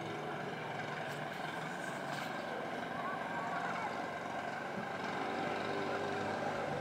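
Steady drone of a helicopter's engine and rotor, running evenly without a break.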